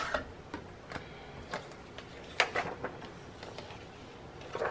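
Scattered light clicks and taps from a sliding-blade paper trimmer and freshly cut clear acetate being handled, the sharpest click about halfway through.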